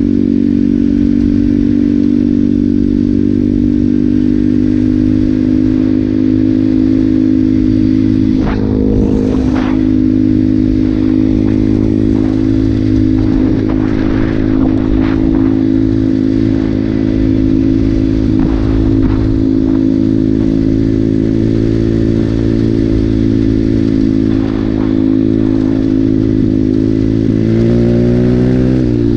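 Regulmoto Seven Medalist 150E pit bike's single-cylinder four-stroke engine running steadily at cruising speed while riding on gravel, with a few clattering knocks. Near the end the engine pitch rises as it speeds up.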